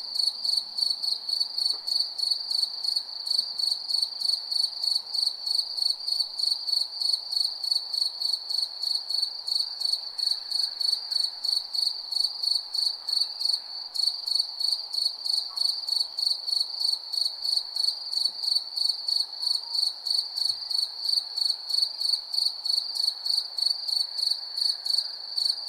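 A cricket chirping steadily at night: one high, even-pitched chirp repeated at a regular pace of about two to three a second, over a faint low background hum.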